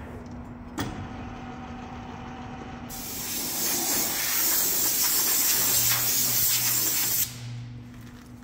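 A compressed-air blow gun hissing loudly for about four seconds as it blows off a lathe steady rest, cutting off sharply. A single knock comes about a second in.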